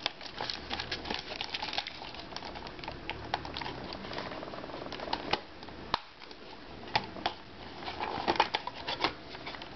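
Irregular light clicks and taps of a small plastic netbook being handled: it is turned over in the hands and fingers work at its bottom panel.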